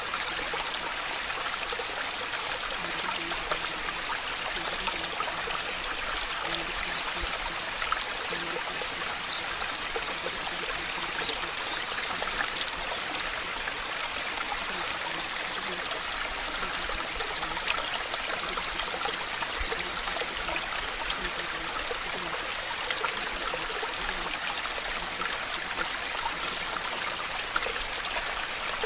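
Steady running water, an even rushing hiss with no breaks or changes in level.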